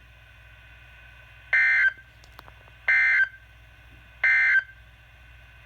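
Emergency Alert System end-of-message data bursts (the SAME 'NNNN' code) sent over NOAA Weather Radio. Three short, identical, raspy digital buzzes come about a second and a half apart over faint radio hiss and hum, marking the end of the warning broadcast.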